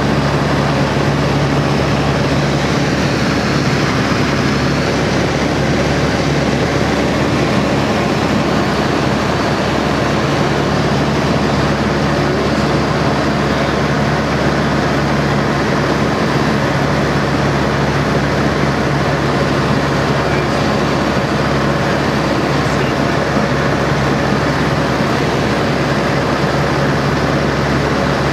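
Steady drone of a de Havilland Chipmunk's piston engine and propeller in cruising flight, heard from inside the cockpit, with air rushing past.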